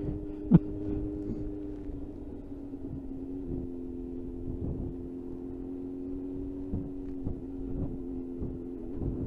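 Suzuki GSX-R sports motorcycle engine running steadily at a low cruising speed, with wind and road rumble on the rider's microphone. A sharp knock sounds about half a second in.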